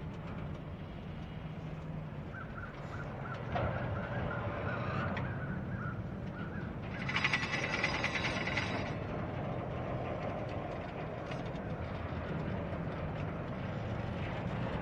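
Double-stack intermodal train cars rolling slowly past, a steady low rumble of wheels on rail. About seven seconds in, a loud harsh rasping sound lasts about two seconds over the rumble.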